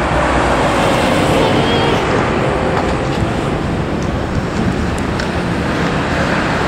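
Steady road traffic noise from cars and buses passing on a busy city street.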